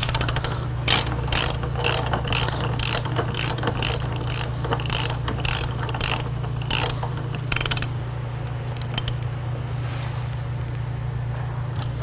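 Hand socket ratchet clicking in a steady rhythm, about three clicks a second, as it is swung back and forth to drive a 3/8-inch stainless lag screw down through the vise base into a maple bench. The clicking stops a little past halfway, leaving a few light ticks over a steady low hum.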